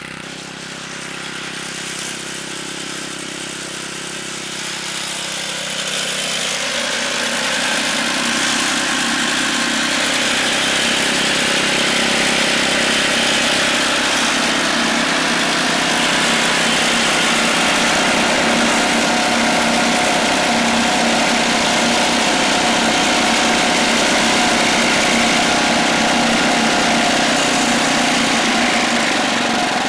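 Small gasoline engine of a home-built robotic lawnmower running steadily, its cutting head working through long, wet grass. It grows louder over the first several seconds as the mower comes close, then runs loud and even.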